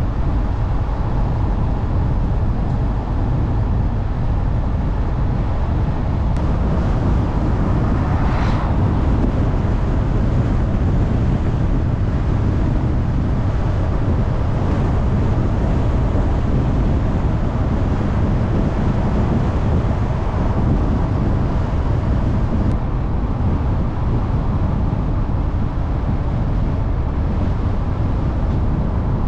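A car driving steadily along a paved road: a continuous low rumble of engine and tyres, with wind hiss over it. About eight seconds in, the hiss swells briefly.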